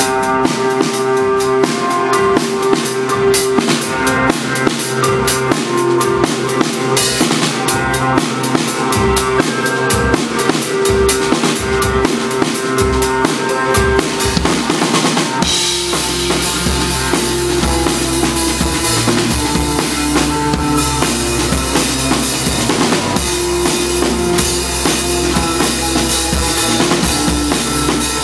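A live band playing, led by a drum kit with bass drum and snare hits over held instrument notes. About halfway through, a heavy low bass comes in and stays.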